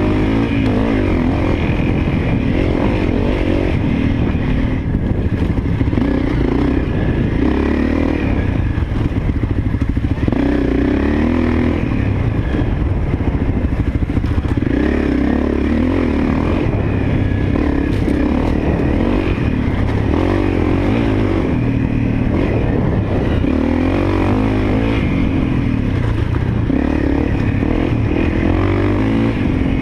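Honda CRF250L's single-cylinder four-stroke engine running steadily under way, its revs rising and falling every few seconds as the bike is ridden.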